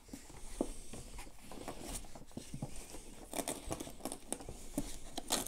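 Cloth rustling and light knocks as a costume dress is handled and pulled onto an animatronic witch figure, with a couple of louder scratchy rustles about three and a half seconds in and near the end.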